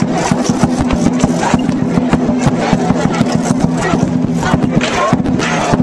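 Fast, continuous beating of a large Chinese drum with cymbals crashing over it: the percussion that drives a dragon dance.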